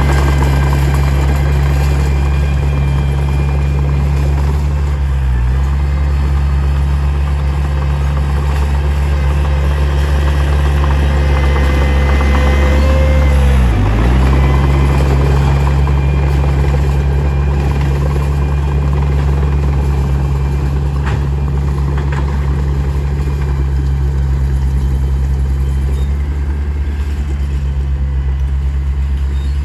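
Heavy diesel engine of earthmoving equipment running steadily. Its pitch dips briefly and recovers twice, about five and fourteen seconds in.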